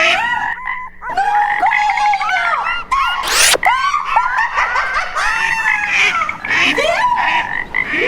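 High-pitched voices squealing and shrieking in short, bending cries, with a sharp rising whoosh about three and a half seconds in.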